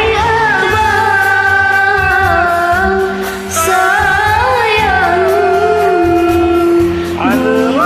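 Acehnese pop song sung over a karaoke backing track: a voice holds long, wavering notes over a steady bass line.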